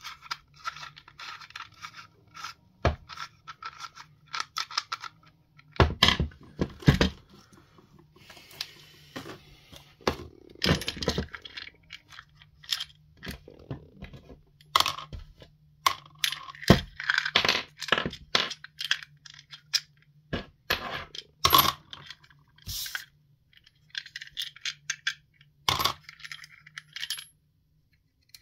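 Irregular sharp clicks, clinks and short scrapes of hard parts of a Spinlock XA rope clutch being handled and worked on during a handle replacement, over a faint steady low hum.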